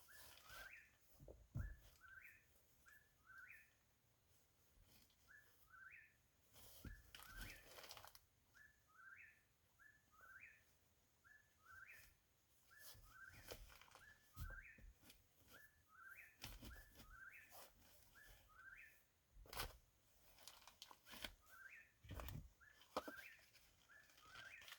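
A bird calling at night, faint: short whistled notes, mostly rising in pitch, repeated in quick groups over and over. A few soft knocks and rustles sound in between.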